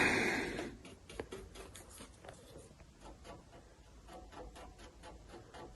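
A small paintbrush dabbing and stroking thick paint onto a car body panel: faint soft scratchy strokes and light taps, after a brief hiss at the start.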